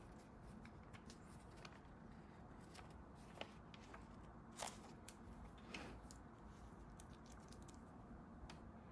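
Faint scratching and small clicks of a pen writing on paper at a desk, with a few sharper ticks around the middle.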